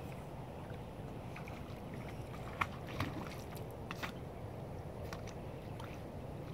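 Steady low wind rumble on the microphone, with faint water sounds and a few soft clicks from an Australian Cattle Dog swimming across a pond.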